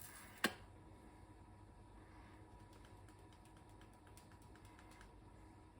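Near silence: faint steady room hum, with one short click about half a second in.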